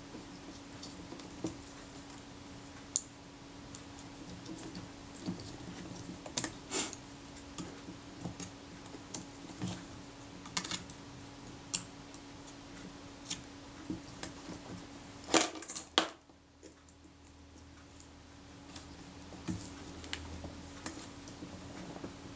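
Scattered small clicks and taps of fingertips and fingernails on the metal body of a Kodak Retina IIIS camera as a leatherette patch is pressed and stretched into place on the top plate. About fifteen seconds in comes a short cluster of louder clicks.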